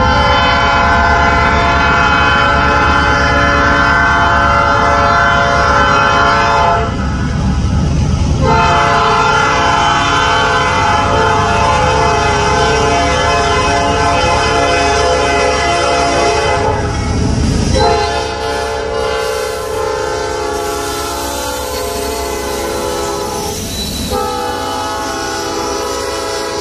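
Diesel freight locomotive's air horn blowing four long blasts, each several seconds long, with short breaks between them, over the low rumble of the approaching GE diesel-electric locomotives. The rumble eases about two-thirds of the way through.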